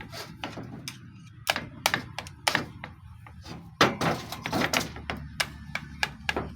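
Irregular metallic clacks and knocks as a loose part of a dismantled Isuzu 4HL1 engine is rocked back and forth by hand to show its play. The looseness comes from a worn bushing.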